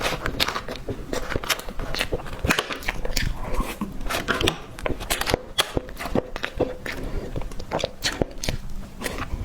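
Close-miked eating of cake: irregular biting and chewing with crackly, clicky mouth sounds, several a second.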